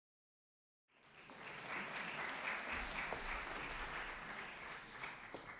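Audience applauding, starting about a second in after silence and tapering off near the end.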